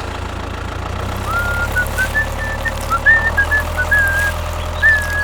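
Steady low engine hum like an idling tractor, with a whistled tune coming in about a second in and carrying on over it.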